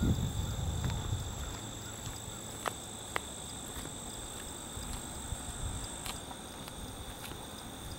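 Insects singing in two steady high-pitched tones, the higher one stopping about six seconds in. A low rumble dies down after about a second and a half, and two faint clicks come about half a second apart near three seconds in.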